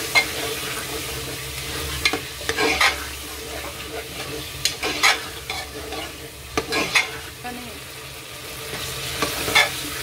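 Onion-tomato masala sizzling in hot oil in a pressure cooker as it is stirred and fried down, with the spatula scraping and clicking against the pot every second or so.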